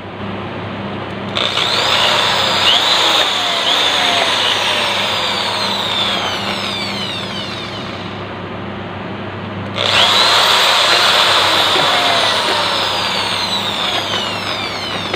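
Corded electric drill boring into a thin PVC pipe in two runs of several seconds each, the second starting about ten seconds in. Its whine slides down in pitch as it runs.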